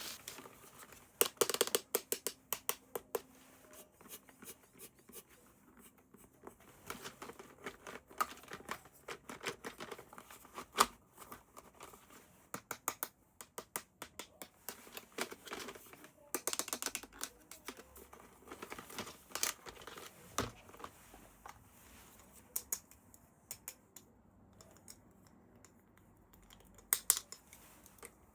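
Toy packaging and plastic parts being handled during an unboxing: irregular clusters of quick clicks and snips with some crinkling, the sharpest click about eleven seconds in.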